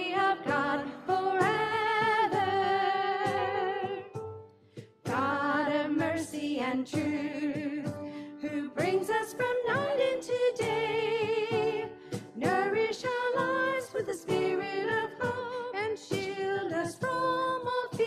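Hymn singing, with held, wavering notes in vibrato. There is a short break about four to five seconds in as one verse ends and the next begins.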